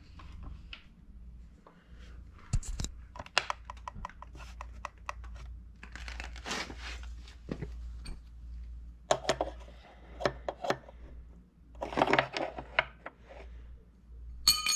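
Hand tools and small metal parts being handled and moved about on a concrete floor: irregular clicks, taps and scraping rustles, ending in a short metallic clink that rings briefly.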